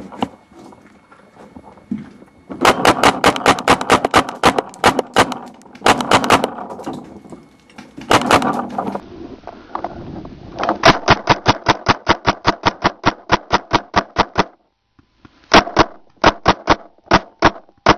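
Paintball marker firing in rapid strings of sharp shots, several bursts with short pauses between, the longest a steady run of about six shots a second.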